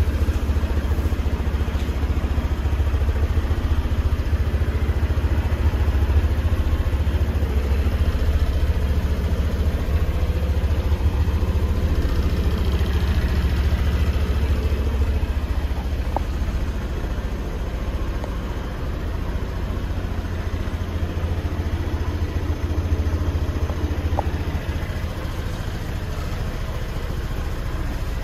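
Honda PCX125 scooter's single-cylinder four-stroke engine idling steadily.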